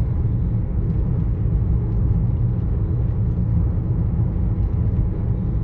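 Steady low tyre rumble heard inside the cabin of a moving car, from budget Road X tyres rolling on a coarse chip-seal road. It is 'quite rumbly', though the rough road surface may be part of the cause.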